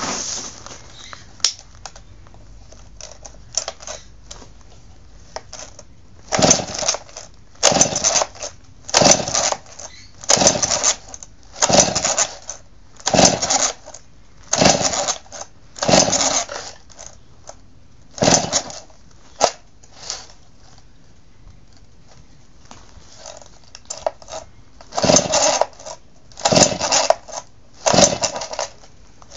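Stihl S10 two-stroke chainsaw being pull-started over and over with its recoil starter rope, each pull a short whirring rasp of the engine cranking over. There are about ten pulls roughly a second and a half apart, then after a pause three more near the end, and the engine never catches and runs.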